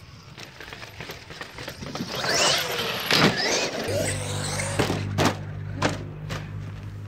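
Background music with a steady bass line, over a battery-electric RC monster truck's motor revving in rising and falling whines, with a few sharp knocks.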